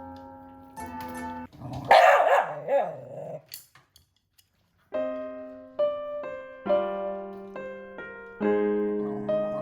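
A dog barks in a loud outburst lasting about a second, starting about two seconds in, over piano background music. The music breaks off briefly after the outburst and then resumes.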